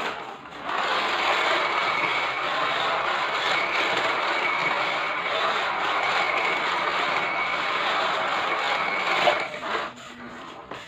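Radio-controlled Scania 770S model truck driving: a steady mechanical whir with a faint whine from its motor and gears, with tyres scrubbing the surface as it drifts. It dips briefly just after the start and cuts back about a second before the end.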